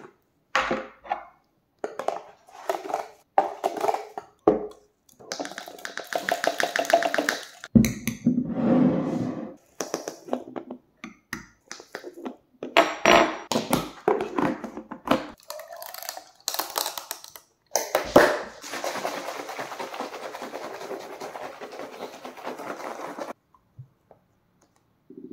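Kitchen handling sounds: plastic bottles, a glass jar and a plastic funnel knocked and set down, with granules poured through the funnel into a plastic bottle, in a run of short knocks and rustles. Near the end comes a steady rustling hiss lasting about four seconds.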